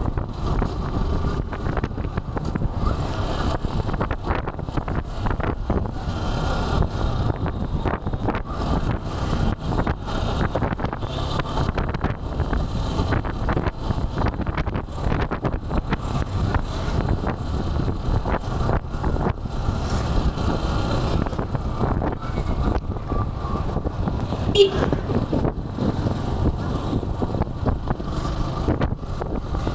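Wind buffeting a microphone over a steady low rumble of a motorcycle and road traffic while riding. About 25 seconds in there is a brief sharp sound, the loudest moment.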